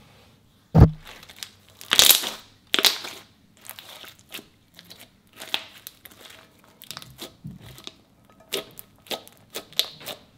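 Clear slime being stretched, squeezed and poked by hand. It gives a quick run of wet clicks, pops and squelches, with the heaviest squelch about a second in.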